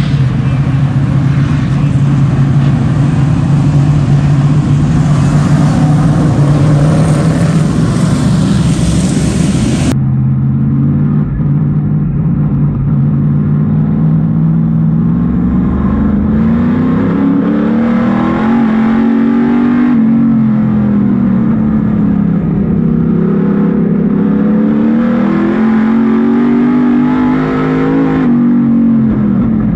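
A field of Street Stock race cars running together, with a steady engine note. About a third of the way in it switches to inside the cabin of a Street Stock race car: its engine drones loudly, and its pitch rises and falls repeatedly as it accelerates and lifts around the track.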